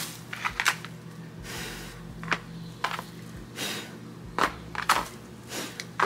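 Crumpled plastic bags crinkling and a cardboard tray being handled, with several sharp clicks and knocks as small painted knobs are picked up and set down on the cardboard.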